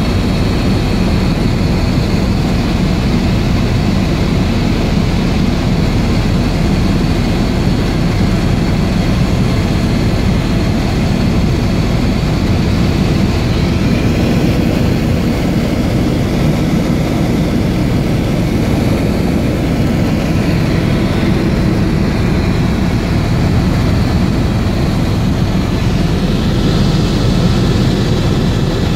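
Helicopter running steadily: a constant, loud engine and rotor noise with a thin high whine above it.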